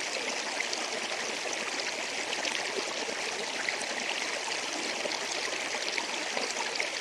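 River water flowing steadily over stones, a continuous rushing with small bright splashes and trickles.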